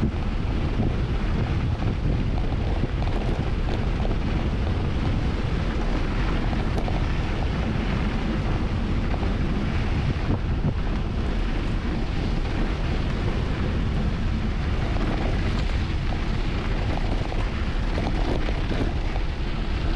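Steady, loud wind rushing over the camera's microphone during a fast mountain-bike descent.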